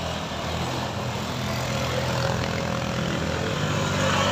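Vehicle engines droning steadily as traffic labours up a steep climb, including a small scooter engine under load as it is pushed uphill.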